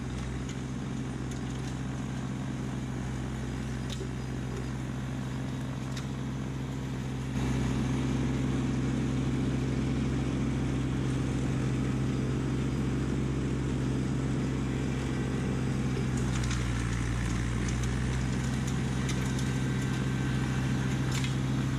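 Kubota LX2610 compact tractor's three-cylinder diesel engine running steadily under load while its front snowblower throws snow, a constant drone that gets abruptly louder about seven seconds in.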